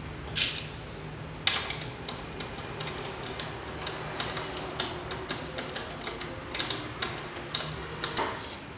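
Irregular small clicks and taps as a bolt fitted with a bearing and washers is set and turned by hand in a wooden rail, with a sharper knock about a second and a half in.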